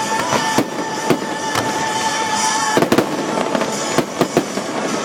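Fireworks going off in quick succession, many sharp bangs and crackling reports, with a steady high tone held under them that stops about three seconds in.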